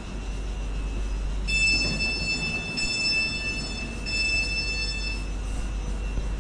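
Train with a high, steady whine and overtones that comes in about one and a half seconds in, breaks off briefly twice and stops a little after five seconds, over a constant low rumble.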